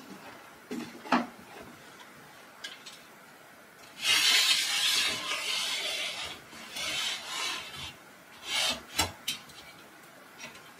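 Aluminium sliding loft ladder being pushed up to stow it: a scraping slide of metal sections lasting about two seconds, a shorter slide, then a few sharp knocks.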